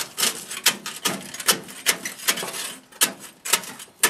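Grill scraper scraping black crunchy charred residue along the drain trough of a Holland Grill, in quick repeated rasping strokes, about two or three a second.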